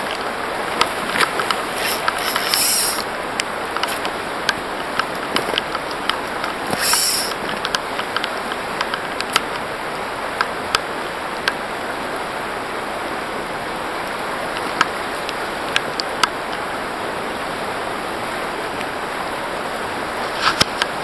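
Shallow river rippling steadily over a gravel bed, with scattered sharp clicks and two brief hisses in the first seven seconds.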